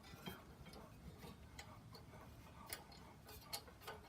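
Faint, scattered light clicks as a small nut on the mower's throttle cable is turned loose by hand.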